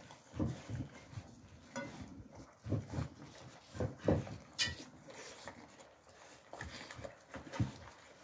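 Alabai (Central Asian Shepherd) puppies eating from metal bowls: irregular low chewing and mouthing noises with the bowls knocking now and then, and one sharp clink about four and a half seconds in.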